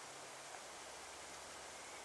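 Faint, steady outdoor background hiss, like a light breeze rustling through pine trees.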